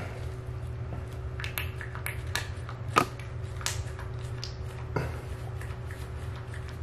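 A few short, sharp clicks and taps, the loudest about three seconds in, as a rubber-gloved hand handles a small pump bottle of gel and works at a bathtub drain. Under them runs a steady low hum.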